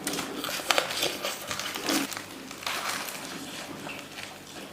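People eating at close range: chewing crisp-skinned grilled pork intestine, with light crinkling and small clicks from handling the food.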